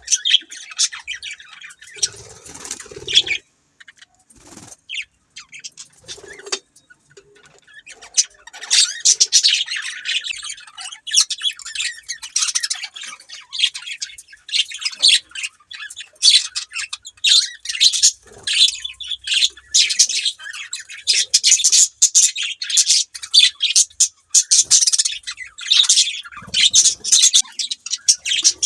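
Budgerigars chirping and warbling, a fast stream of short high chirps with occasional harsher squawks; sparse at first, then nearly continuous chatter from about eight seconds in.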